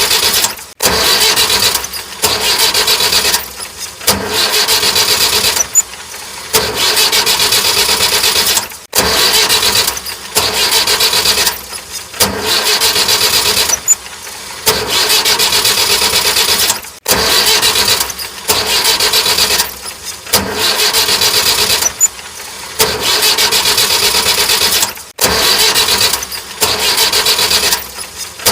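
Small electric motor whirring in repeated bursts of a second or two, each cut by a short break, as it starts and stops over and over.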